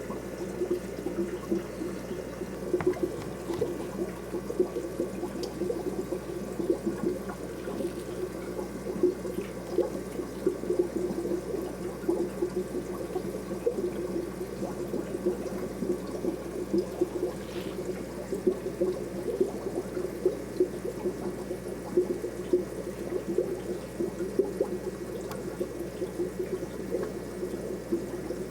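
Aquarium water trickling and bubbling steadily, a constant fluttering splash.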